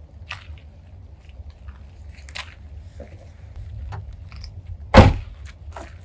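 Footsteps and small crunches on gravel, then a car trunk lid slammed shut about five seconds in, the loudest sound, over a low steady rumble.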